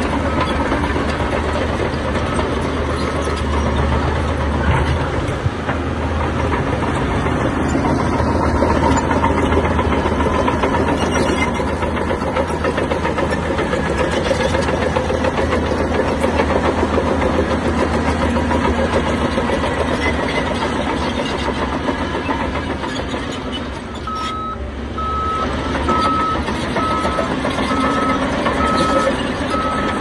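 Heavy earthmoving machinery, such as a bulldozer or dump truck, running steadily. Near the end a reversing alarm starts beeping at an even pace over the engine.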